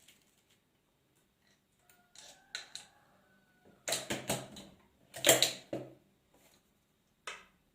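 MEC Sizemaster shotshell reloading press being worked on a 12-gauge shell: metallic clicks and clacks of the handle, die station and shell, with louder bursts of clatter about four and five and a half seconds in and one more near the end.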